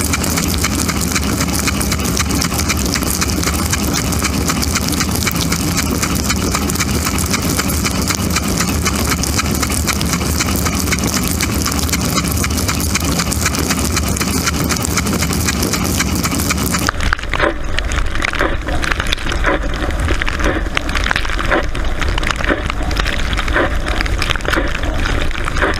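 Dishwasher running: a steady rush of spraying water over the hum of the pump. About 17 seconds in, the sound changes abruptly to a duller run with irregular knocks.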